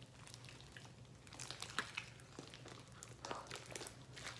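Slime being kneaded by hand during activation: faint, irregular sticky clicks and crackles as it is pressed and pulled.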